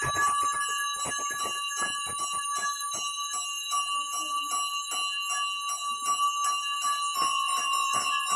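Puja hand bell rung rapidly and without pause, about four or five strikes a second, its ring sounding on between strikes.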